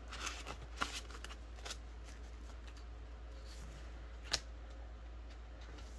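Light handling noise from plastic binder pockets and polymer banknotes: soft rustles and crinkles in the first couple of seconds, then a single sharp click about four seconds in, over a low steady hum.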